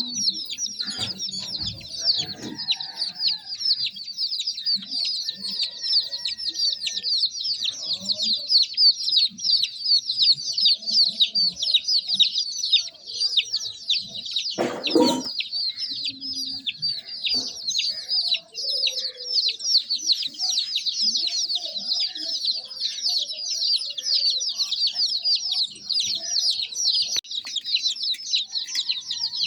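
A brood of baby chicks peeping all together, a dense, unbroken chorus of high-pitched chirps, with a single knock about halfway through.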